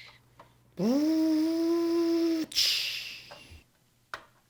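Sound effects for a toy bus: a horn-like held tone that slides up in pitch at the start, lasts about a second and a half and cuts off, then a hiss like air brakes that fades away.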